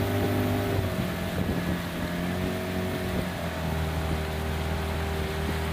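A motorboat engine running steadily, its pitch shifting slightly a couple of times.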